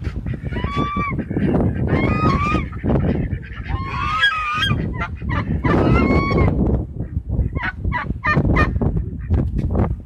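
Domestic geese honking, a run of loud drawn-out honks followed by shorter, choppier calls, over strong wind buffeting the microphone.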